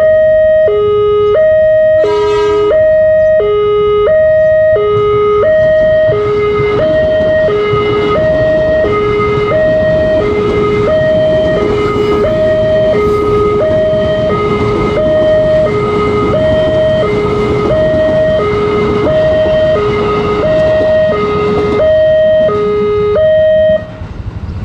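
Railway level-crossing alarm on a LEN-made signal pole sounding its two-tone electronic warning, a high and a low tone alternating about every two-thirds of a second, while an electric commuter train rumbles past through the crossing. The alarm cuts off about a second before the end.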